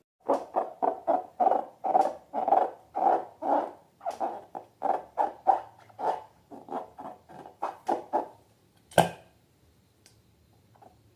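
Slime being squeezed and squished by hand: a quick run of soft squelches, about two to three a second, with a single sharp snap near the end.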